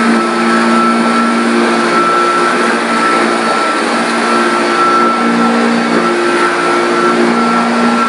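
Hoover Junior upright vacuum cleaner running steadily while it is pushed back and forth over carpet: a loud motor hum with a constant high whine.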